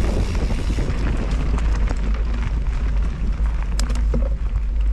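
Wind buffeting the microphone: a steady, loud low rumble, with a few faint clicks near the end.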